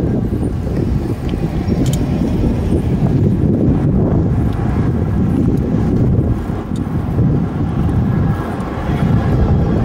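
Wind buffeting the microphone and road rumble from a moving bicycle, a dense low rumble that rises and falls unevenly.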